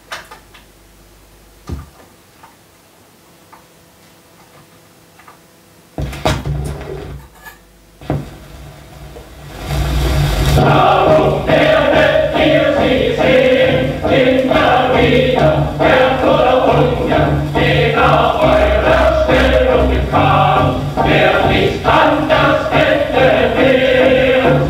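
78 rpm shellac record playing on a turntable. A few faint clicks come first, then a sudden rise in surface noise about six seconds in. From about ten seconds in, a choir sings with accompaniment from the record.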